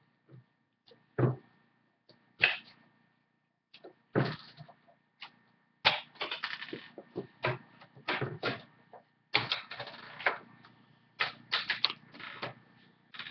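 Irregular clicks, taps and knocks, sparse at first and coming thicker about halfway through, with a few short stretches of rustling.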